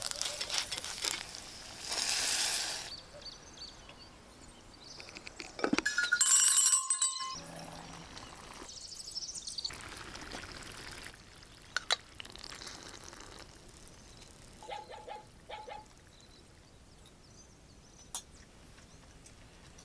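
Cooking sounds: a wooden spatula stirring and scraping a thick ground-walnut paste in a pot, then a ringing metallic clink about six seconds in, the loudest sound. Stew is ladled out around ten seconds in, and a spoon clicks on a plate near the end.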